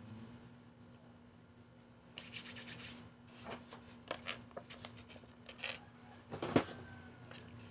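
Rustling and crinkling of a face-mask packet being handled. A dense stretch of rustle comes about two seconds in, followed by scattered crackles and clicks, the loudest a little before the end.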